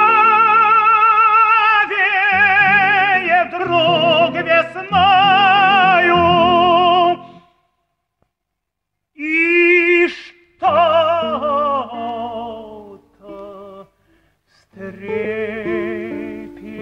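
Operatic solo singing with wide vibrato over instrumental accompaniment. The voice holds long notes, breaks off about seven seconds in, and after a short silence a new passage begins in shorter sung phrases.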